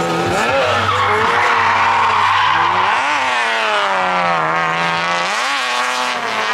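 Drift car's engine revving hard, its pitch climbing sharply and falling back about three times, with tyres squealing as the car slides.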